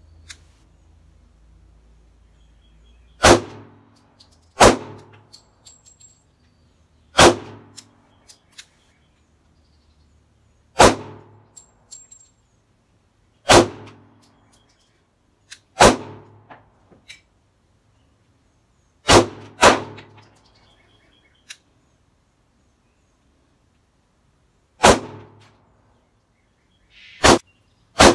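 Sarsılmaz CM9 9mm pistol fired in slow, aimed single shots, about eleven in all, each a sharp crack with a short ringing tail. The shots come a few seconds apart, with one pair close together about two-thirds of the way through.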